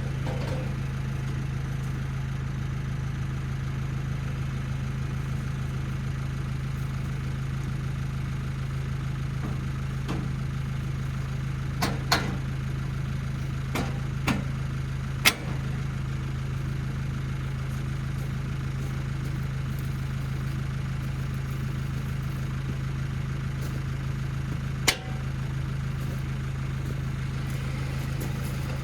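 Tractor engine idling steadily, with a few sharp knocks about halfway through and one more near the end.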